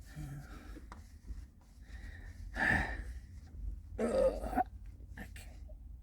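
A man clearing his throat twice, a little over a second apart, followed by a couple of faint clicks.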